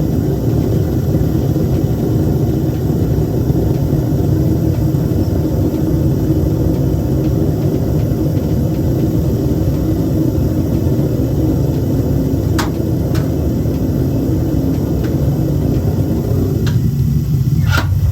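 Home-made metal-melting furnace's burner running with a steady low roar. Several sharp metallic clinks come in the last few seconds.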